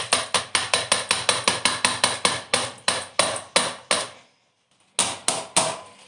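A mesh strainer rapped over and over against the rim of a stainless-steel bowl to knock soaked seeds out, about four to five sharp taps a second. The taps stop briefly about four seconds in, then a few more follow.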